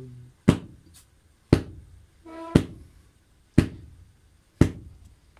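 Slow, steady strikes, about one a second, each a sharp knock with a brief ringing tail, made by repeatedly hitting something by hand.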